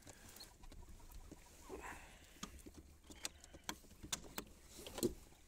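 Faint, irregular small clicks and taps, with a slightly louder knock near the end.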